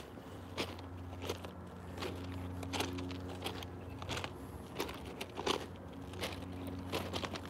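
Footsteps crunching on railway ballast gravel at a steady walking pace, about one step every 0.7 s, over a steady low hum.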